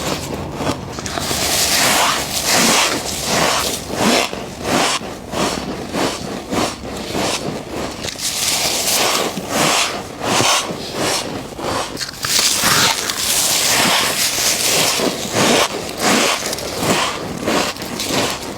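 Frost being bitten and chewed close to the microphone: a steady run of crisp crunches and scrapes, several a second.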